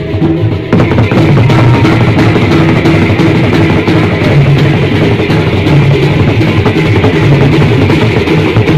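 Sasak traditional drum-and-gong ensemble playing loudly: big double-headed drums beaten over small gongs holding steady low tones, with hand cymbals clashing. The cymbals swell in just under a second in.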